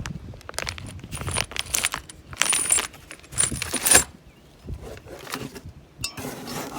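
Metal parts from a rear-end rebuild kit being handled, clinking and rattling against each other and their packaging. The rattles come in several bursts, loudest about two and a half and four seconds in.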